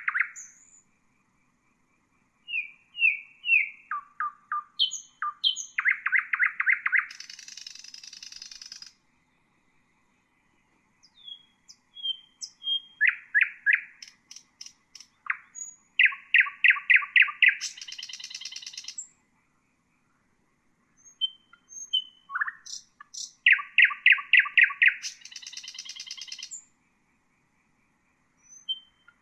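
Nightingale singing: three song phrases separated by pauses of about two seconds, each made of short whistled notes, a fast run of repeated notes and a buzzing rattle at the end.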